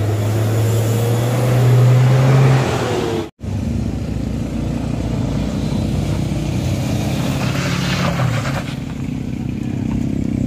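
A coach's engine running loudly as it passes close by on a dirt climb, its deep steady note rising slightly before breaking off about three seconds in. Then a car and several motorcycles climb the rough dirt road, their engines mixed together, swelling briefly near the end.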